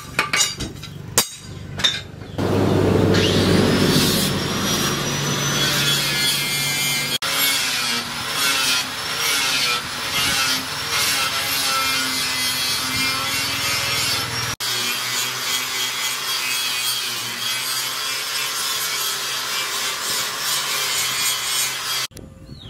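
A few hammer blows on steel at the anvil, then from about two seconds in a loud, steady rasping and grinding noise from a power tool, starting with a rising whine as it spins up.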